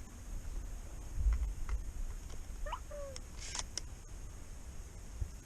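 Camera handling noise and light rustling, with scattered small clicks and a low rumble; a short high call rises and falls about three seconds in, followed by a brief rustle.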